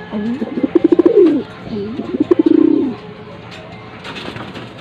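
Domestic pigeon cooing twice: two low, rolling, pulsing coos, each a little over a second long, one close after the other. Faint clicks follow.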